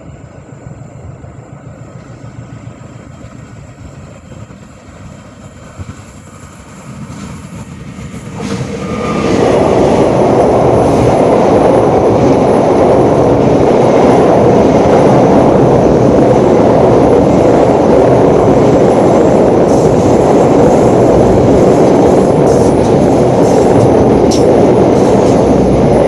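Train approaching with a low rumble, then passing close over a railway bridge from about nine seconds in: a loud, steady rumble and rattle of wheels on the rails and bridge.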